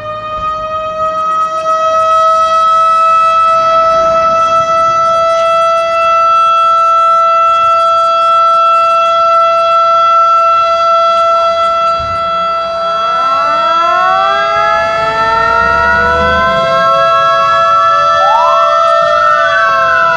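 A fire station's alarm siren winds up and holds one steady wail, sounded for a structure-fire call. From about 13 seconds in, a fire engine's siren joins with repeated rising and falling wails.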